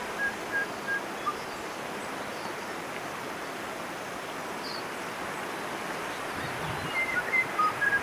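Shallow mountain stream running over flat rock slabs: a steady rush of water. A bird calls with short repeated notes near the start and again near the end.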